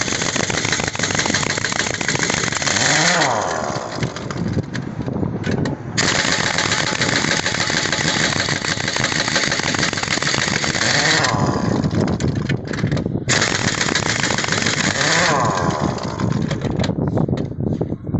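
Heavy-duty pneumatic impact wrench hammering on truck wheel nuts in three long bursts. Each burst winds down as the air motor slows, with short pauses between them.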